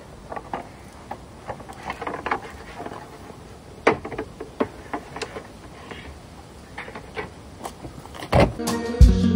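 Scattered footsteps and irregular wooden knocks as a wooden folding chair is handled and loaded into a car's back seat, with a louder thump near the end. Music begins just before the end.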